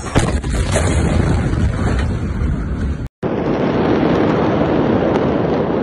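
Phone recordings of a massive port explosion: loud rumbling noise with a sharp jolt just after the start as the camera is thrown about, then, after an abrupt cut about three seconds in, a steady roaring rumble with wind noise on the microphone.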